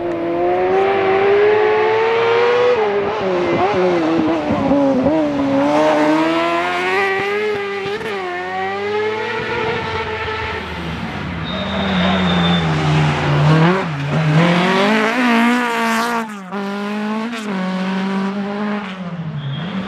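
Rally car engine worked hard on a tarmac stage, its pitch repeatedly climbing and dropping as the driver accelerates, shifts and lifts for corners, with a brief cut in the sound about sixteen seconds in.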